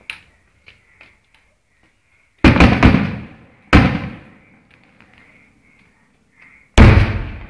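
Fireworks exploding: a quick cluster of loud bangs about two and a half seconds in, another bang about a second later, and a third near the end, each dying away over about a second.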